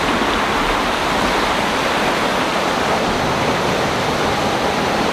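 A creek swollen by heavy rain and running in flood, with muddy water rushing past in a loud, steady wash.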